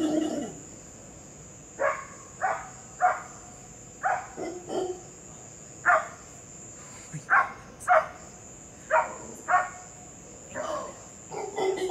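A series of about a dozen short, sharp animal calls, like yips or barks, spaced unevenly in the dark trees, which the uploader takes for monkeys. A steady high insect trill runs underneath.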